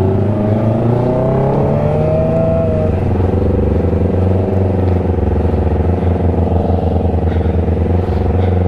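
Kawasaki Ninja ZX-25R's 250 cc inline-four engine running with the bike standing still. The revs rise slowly over the first few seconds, then hold steady.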